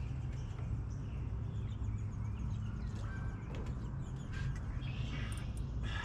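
Faint bird calls over a steady low rumble, with a few light clicks.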